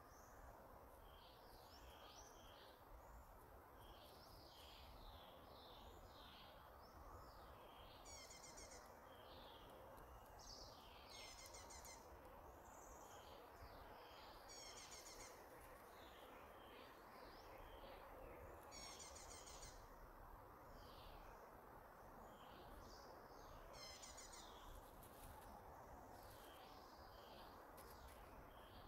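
Faint birdsong: many short high chirps and whistles, with a short buzzy trill repeated about every four seconds, over a steady hiss.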